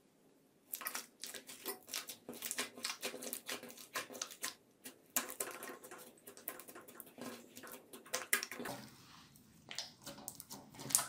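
Hands squishing and pressing a blue slime, making a rapid run of small sticky pops and crackles. It starts under a second in and eases off for a moment near the end before picking up again.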